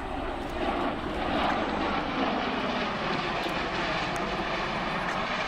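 MV-22 Osprey tilt-rotor flying past, a steady rushing drone of its proprotors and turboshaft engines.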